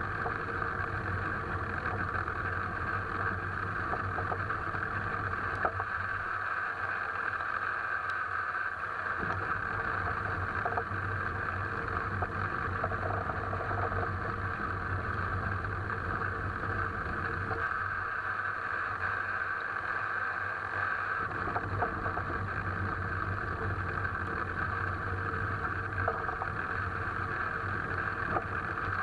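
Alfa Romeo 159 on the move: steady road and running noise with a low hum, broken by a few faint sharp knocks from the suspension.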